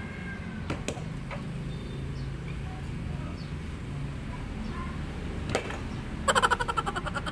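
Loaded barbell clinking during sumo deadlift reps, with a few sharp clicks early on. Near the end, as the bar comes down, there is a rapid rattle lasting about a second, the loudest sound. A steady low hum runs underneath.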